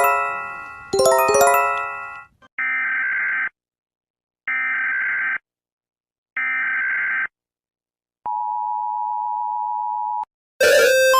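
Two ringing chime chords that die away, then an Emergency Alert System sequence. It plays three short screechy SAME data-header bursts about a second apart, followed by about two seconds of the steady two-tone attention signal.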